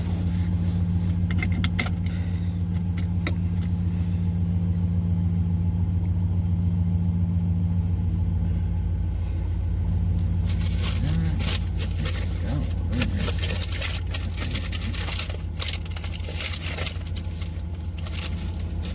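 Car running at road speed, heard from inside the cabin: a steady low engine and road drone. From about halfway through, a rougher tyre hiss with scattered light knocks joins in.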